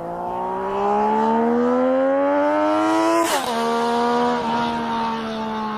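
Triumph Daytona 675's inline-three engine climbing steadily in revs under acceleration. A little over three seconds in, an upshift drops the pitch, and it runs on steadily before starting to fade near the end.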